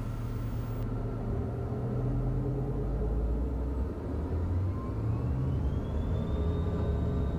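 Gulfstream G200's twin Pratt & Whitney PW306A turbofans spooling up to takeoff thrust: a low rumble under a whine that starts rising in pitch about halfway through and levels off near the end.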